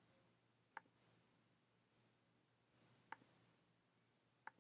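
Near silence broken by three faint, sharp clicks of a computer mouse, about one, three and four and a half seconds in.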